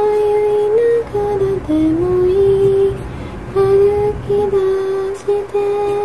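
A woman singing a slow, wordless-sounding melody, holding long notes with short glides up between them.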